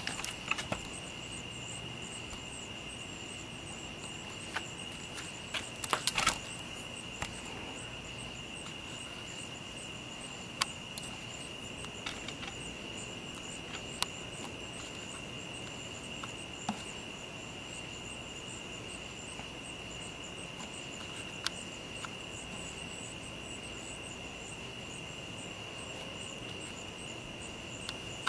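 A summer-night chorus of crickets and other insects: a steady, high, even trill, with a faint regular ticking above it. A few sharp clicks stand out, with a short cluster about six seconds in.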